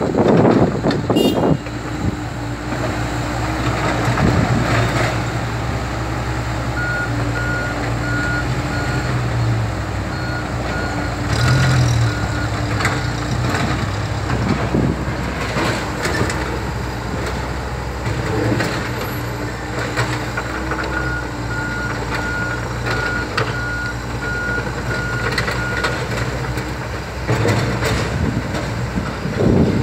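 Komatsu PC70 hydraulic excavator's diesel engine running steadily under load while it works broken concrete slabs, with knocks and clatter of concrete near the start and again near the end. A backup alarm beeps rapidly in two spells.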